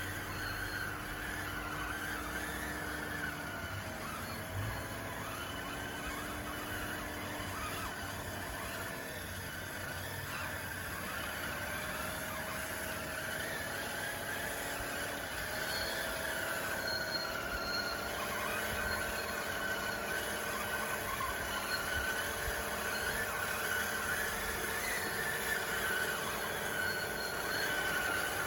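DXR2 RC bulldozer's electric drive motors and gearboxes whining steadily as it works. The pitch dips and recovers several times as the load on the tracks changes.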